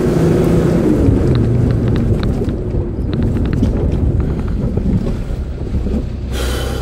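A four-wheel-drive truck heard from inside the cab as it drives over a rough dirt track: a low engine and road rumble with wind buffeting the microphone. Short rattles and knocks from the body come through in the first few seconds, and there is a brief burst of noise near the end.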